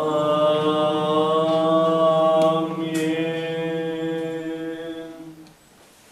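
Eastern Orthodox liturgical chant: a voice holds one long, nearly steady sung note that fades out about five and a half seconds in.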